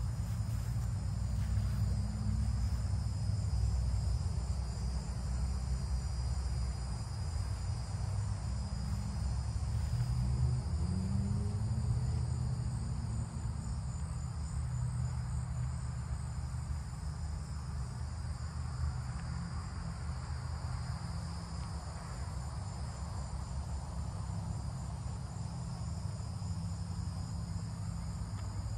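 2003 Mercedes-Benz SL500's V8 idling steadily, a low exhaust rumble. Insects chirp steadily high above it.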